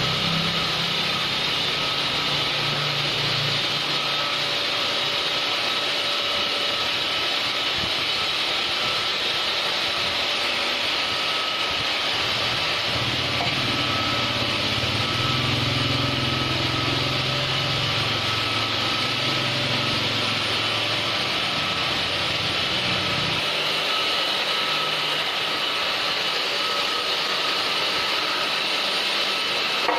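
A small motor running steadily, with a deeper rumble at the start and again from about 13 to 23 seconds in.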